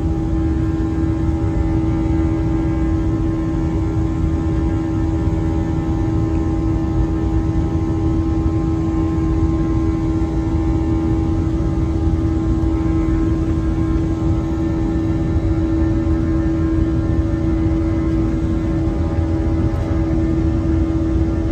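Airliner cabin noise during the climb after takeoff: jet engines and airflow making a steady low rumble with a constant droning hum over it.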